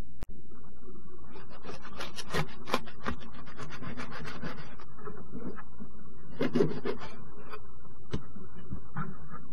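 A knife sawing through a toasted sandwich wrapped in cling film: rasping, crackling strokes of blade on crisp toast and plastic wrap from about a second and a half in to about five seconds, a second short burst around six and a half seconds, then a few light clicks near the end.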